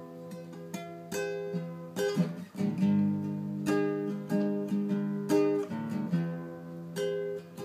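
Classical guitar played solo with the fingers: a slow introduction of plucked chords and single notes, each left to ring.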